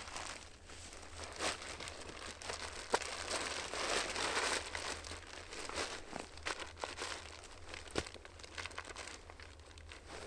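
Rustling and crinkling of cloth and burlap as a burlap rucksack is hoisted onto the back and settled on the shoulders, with a few small sharp knocks.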